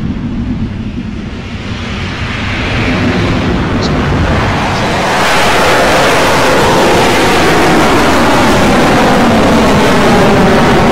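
Rocket Lab Electron rocket's nine kerosene Rutherford first-stage engines at liftoff: a low rumble that swells about two seconds in and again about five seconds in, then holds steady and loud as the rocket climbs.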